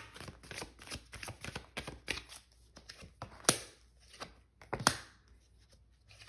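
Tarot cards being handled by hand: a run of light card flicks and rustles, with a few sharper snaps as cards are pulled from the deck and laid down on the table.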